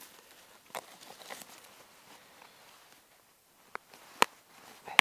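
A few short, sharp clicks and small handling noises from fishing tackle being worked by hand while a hook is baited with worms. The loudest click comes about four seconds in.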